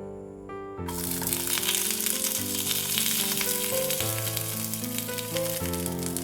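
Food sizzling and crackling in a hot pan, starting about a second in, over gentle background music.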